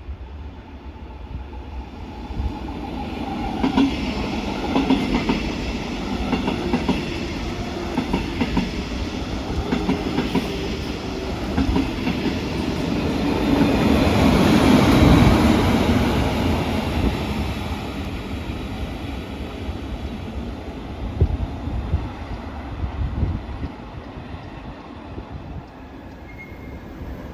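A train passing on the tracks, its rumble building to its loudest about halfway through and then fading away. A few sharp knocks from the wheels come near the end.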